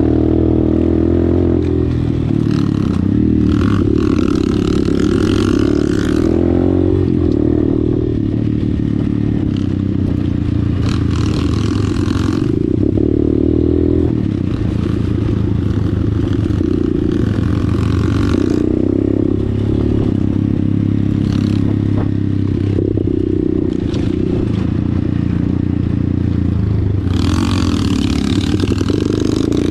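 Dirt bike engine running under throttle, its pitch shifting up and down several times as the rider works the throttle over rough ground. Short bursts of rattle and clatter from the bike bouncing over loose rock.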